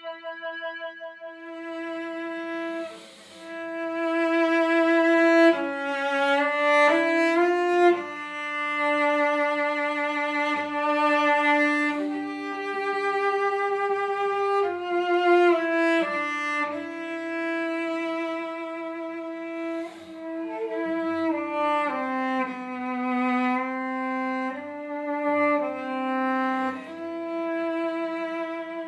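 A bowed string instrument played solo: a slow melody of long held notes, one line at a time, moving step by step in pitch.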